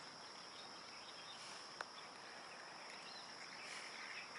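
Quiet lakeside ambience: a steady high-pitched insect drone with faint bird chirps, and a single sharp click about two seconds in.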